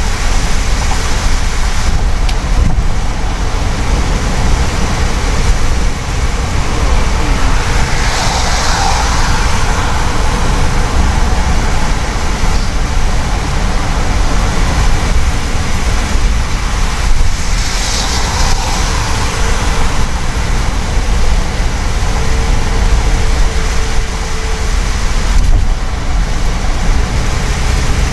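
Road noise inside a taxi's cabin on a wet motorway: a steady low rumble of tyres and engine, with two brief louder hisses about eight and eighteen seconds in.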